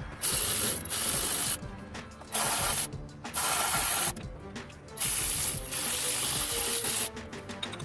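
A power tool, most like a ratchet driving fasteners, running in five sharp bursts, each about half a second to a second long, with a longer run of about two seconds near the end. Each burst starts and stops abruptly with a hissing sound. Faint background music plays underneath.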